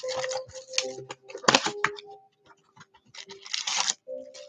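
Trading-card blaster boxes and their packs being torn open and handled: a run of short crinkling, ripping rustles, loudest about a second and a half in and again near four seconds.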